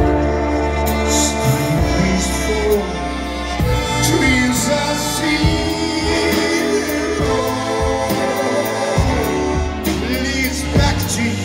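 Live big band playing with a male vocalist singing into a microphone.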